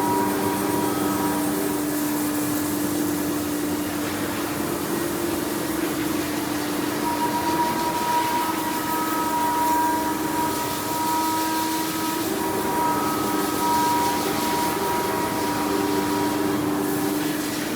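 CNC router running: a steady whine with a broad hiss of air behind it, the pitch of the whine shifting slightly now and then.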